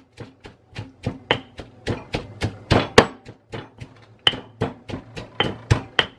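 Marble pestle pounding chopped cilantro and red onion in a marble mortar, steady knocks about three a second, some with a short stony ring.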